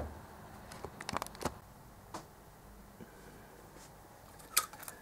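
A few light, sharp clicks and taps from a steel feeler gauge set being handled at a motorcycle cylinder head, with a cluster about a second in and the sharpest click near the end.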